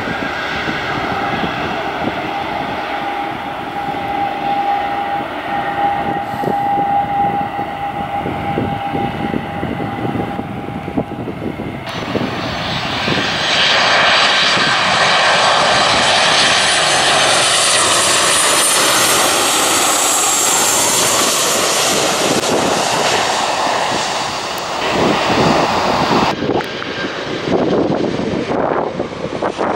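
An ATR twin-turboprop airliner running on the runway, its engines droning with a steady propeller tone. About twelve seconds in this gives way to a Boeing 737-800's jet engines on final approach, growing loud and sweeping in pitch as the jet passes close by, then coming in to land.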